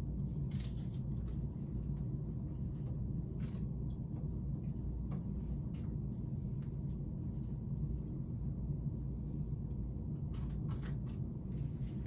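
Steady low room hum, with faint, scattered small clicks and rustles of handling and a short cluster of them near the end.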